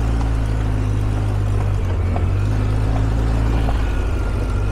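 ATV engine running steadily while riding along a dirt trail, its engine note changing slightly about two seconds in.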